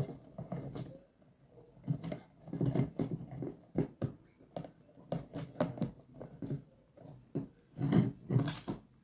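Plastic crate and wire being handled: irregular clicks, knocks and rattles as wire is threaded through the crate's holes, like sewing, to fasten its door.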